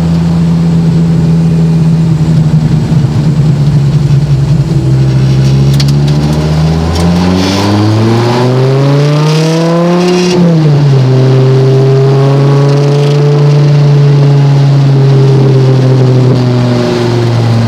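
Dodge Viper GTS V10 engine heard from inside the car, running at steady revs while driving. About seven seconds in it revs up under acceleration, the revs fall sharply at about ten seconds, and it then runs steadily again.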